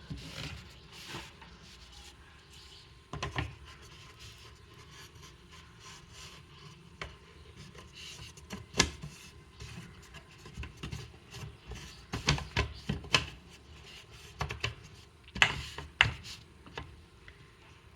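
Thin pre-cut wooden pieces being slotted together by hand: scattered light knocks, taps and scraping rubs of wood on wood, with a few sharper clicks near the middle and end as the roof pieces are fitted.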